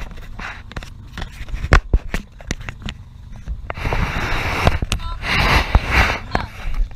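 Handling noise on the camera: a run of sharp knocks and clicks, then two longer bursts of rustling and rubbing against the microphone.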